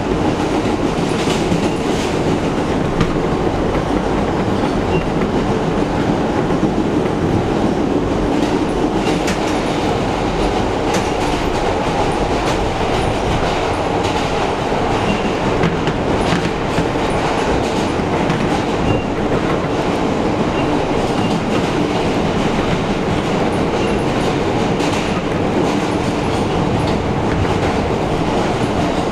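New York City subway train running through a tunnel, heard from inside the front car: a steady loud rumble with scattered clicks from the wheels over the track.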